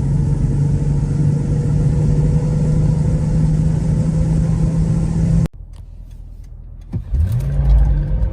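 Toyota Land Cruiser engine drone at a steady speed. It cuts off abruptly about five and a half seconds in. After a short quieter stretch, an engine note climbs in pitch as the vehicle accelerates.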